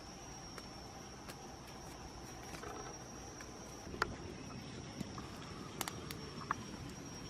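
A steady high-pitched insect drone over a low background rumble, with a few sharp clicks, the loudest about four seconds in.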